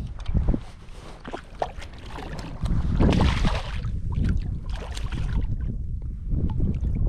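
Wind buffeting the microphone over open bay water, with small splashes and water sloshing; the wind noise swells loudest about three seconds in.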